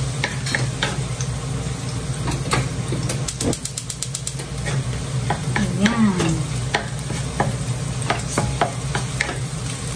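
Meat, onion and garlic sizzling as they are sautéed in a nonstick frying pan, stirred with a wooden spatula that scrapes and taps irregularly against the pan.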